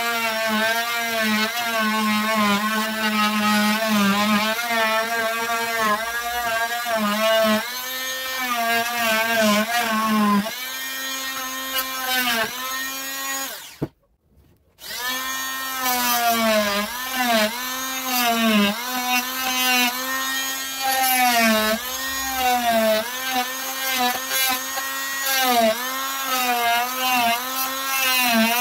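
Wesco oscillating multi-tool running and cutting into a wood block, a steady whine whose pitch repeatedly dips and recovers as the blade bites into the wood. It breaks off for about a second about halfway through.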